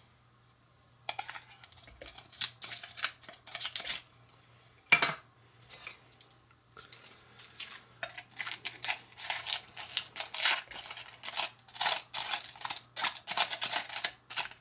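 Wooden spoon scraping roasted tomato slices off a foil-lined tin into a plastic food processor bowl, with crackly scraping and rustling in two long stretches. A single sharp knock comes about five seconds in.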